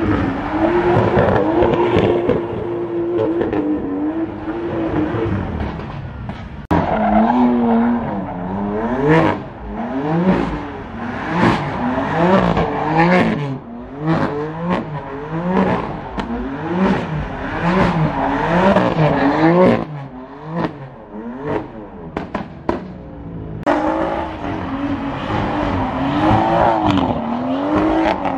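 Cars drifting: engines rev up and down in quick repeated pulses, about one and a half a second, over the hiss and squeal of spinning tyres. The sound changes abruptly a few times.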